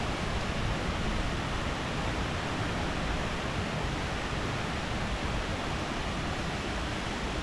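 Waterfall rushing, a steady, even roar of falling water.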